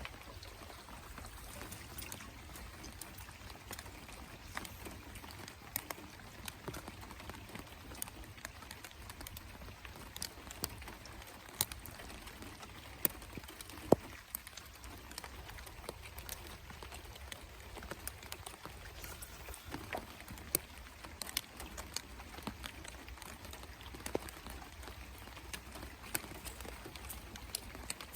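Light rain: scattered raindrops tick irregularly close by over a low steady rumble, with one sharper, louder tick about halfway through.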